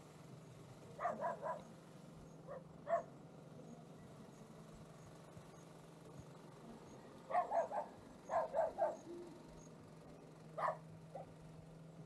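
A dog barking in short runs of two to four barks, with pauses of a few seconds between runs.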